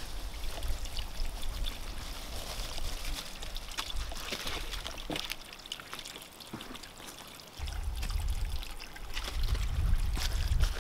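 Small woodland spring trickling steadily out of a hole in the rocks, with a low rumble coming in about two-thirds of the way through.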